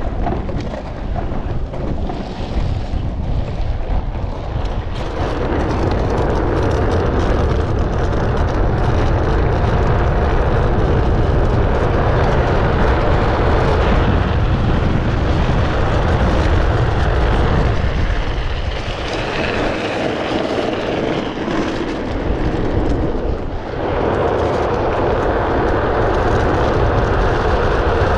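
Wind rushing over a helmet-mounted camera's microphone, with tyre noise on asphalt, as a rider on an unpowered downhill trike descends at close to 100 km/h. The rush grows louder about five seconds in as speed builds, and eases for a few seconds later on before building again.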